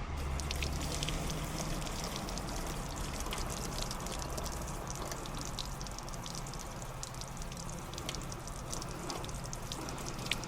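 Water poured from a bucket over an overheated air-conditioner compressor, splashing and pattering steadily onto the hot unit and through the condenser: a dousing to cool the compressor after its thermal overload tripped.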